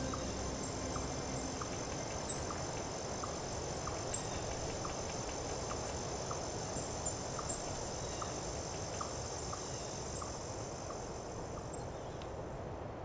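Ambient soundtrack bed: a steady high hiss with soft ticks about every two-thirds of a second over a low hum, slowly fading out near the end.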